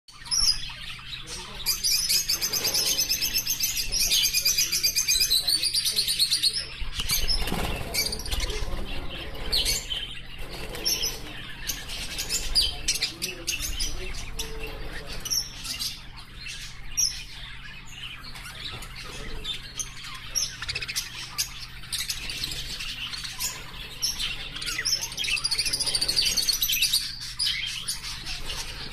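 Many small cage birds chirping and chattering together, with fast trilling song passages near the start and again near the end.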